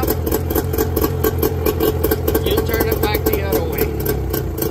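Mercury 25 hp two-stroke outboard motor running steadily at idle, warm, with its prime/choke knob set back to normal.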